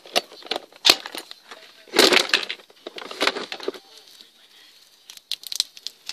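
Close handling noise: irregular sharp clicks and short rustling scuffs right at the microphone, with a quieter stretch about four seconds in.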